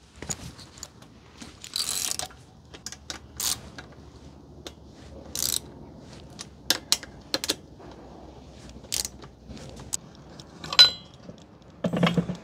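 Hand tools and metal hardware at work as a motorcycle's front wheel is removed: irregular ratchet-like clicks and metallic clinks, with a few brief scraping noises.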